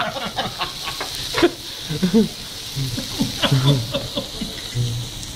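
Background chatter with scattered light clicks and clinks of cutlery and crockery at a table, over a steady room hiss.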